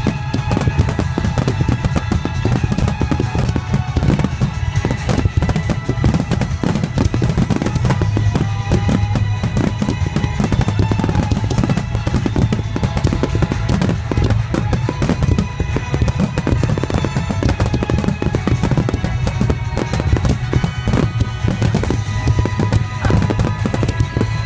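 Fireworks finale: a dense, continuous barrage of aerial shell bursts and crackling, with music playing along.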